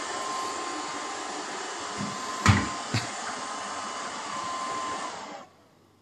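Haier SWR Pathfinder robot vacuum cleaner running steadily, a whirring hiss with a thin steady whine. Two sharp knocks about half a second apart come midway as it bumps among the chair legs. Near the end its motor cuts off suddenly.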